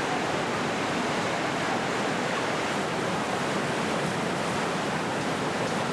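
Steady rush of whitewater pouring over a river rapid's drop.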